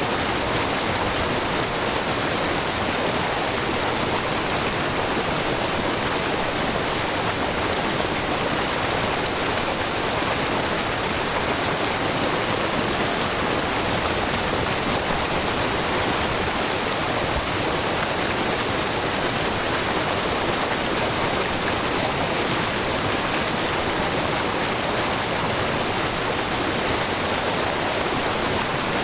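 Wide, low waterfall of many thin spring-fed streams splashing down a rock face, making a steady, even rush of falling water.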